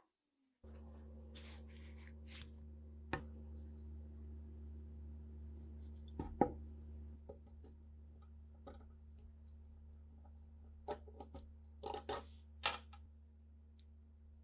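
Sharp clicks and knocks of a rusted pistol and its small metal parts being handled on a workbench, the loudest about six seconds in and a cluster near the end, over a steady low hum that starts just after the beginning.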